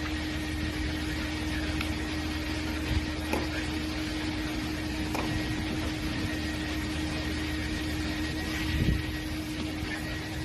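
Steady mechanical hum with a constant low tone, broken by a few light clicks and a short knock near the end.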